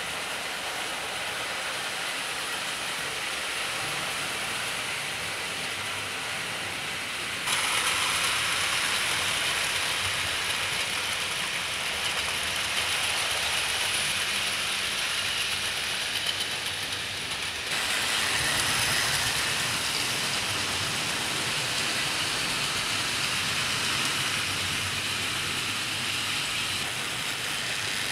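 00 gauge model Bulleid Pacific locomotives running with light freight wagons: a steady whirr of the motors and wheels rolling on the track. It steps up in level about seven seconds in and again near eighteen seconds.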